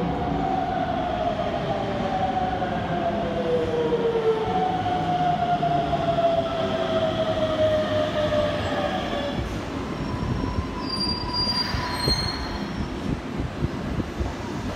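Hokuso Railway 7300-series electric train braking into a station: the motors' whine falls steadily in pitch as it slows, with a short high squeal and a burst of noise near the stop about twelve seconds in.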